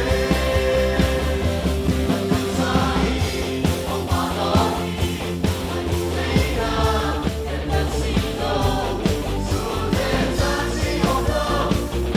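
Live worship song: a male lead singer with backing singers over a band with a steady beat.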